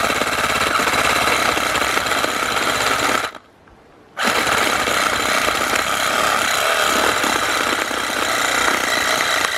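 Cordless reciprocating saw cutting through a red deer carcass's ribs along the spine. It runs steadily for about three seconds, stops briefly, then runs again to the end.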